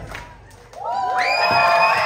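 Dance music cuts off, and after a brief pause the audience breaks into loud cheering and shouting, with many high children's voices among them.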